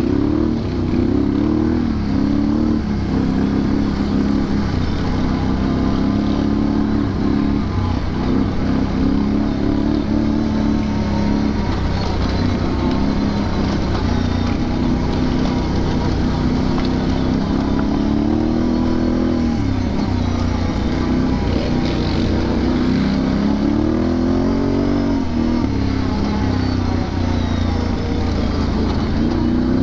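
Can-Am Renegade 1000 XXC ATV's V-twin engine running under changing throttle, its pitch rising and falling, with a couple of sharper revs about two-thirds of the way through.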